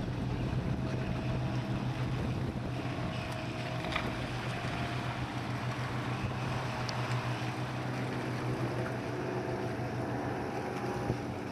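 65 m Marinteknik catamaran ferry passing at speed, its engines a steady low drone over the wash of water, with wind rumbling on the microphone.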